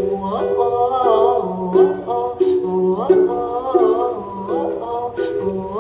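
Acoustic unplugged song: plucked-string accompaniment with a voice singing a wordless, gliding melody line.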